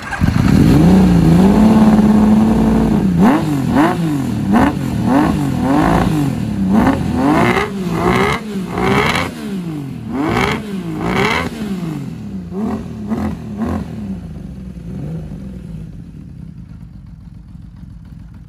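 Honda CBX1000's air-cooled inline-six engine through a custom exhaust. It is held at raised revs for a few seconds, then blipped up and down in quick throttle stabs, nearly two a second. In the last few seconds it settles back to a quieter idle.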